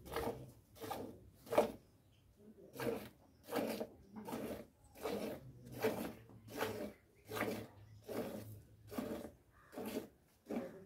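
Hand-milking a cow: rhythmic squirts of milk from the teat hitting the milk already in a steel pail, about one and a half squirts a second, with a brief pause about two seconds in.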